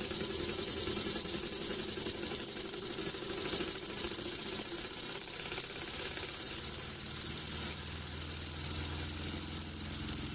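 Homemade wobbler (oscillating-cylinder) steam engine running fast and smoothly on compressed air with the air turned up: a rapid, even chuffing of air through its ports over a steady hiss.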